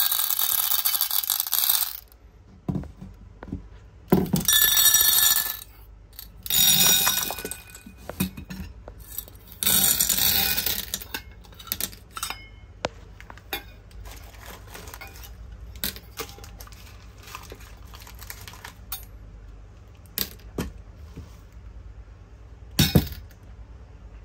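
Small hard objects clinking and rattling in several short bursts, with scattered clicks and a louder knock near the end.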